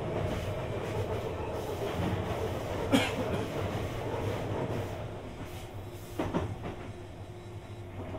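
Sotetsu 20000 series electric train running, heard from inside the car: steady rolling noise with a low hum, slowly getting quieter. There is a sharp click about three seconds in and a couple of wheel knocks over rail joints about six seconds in.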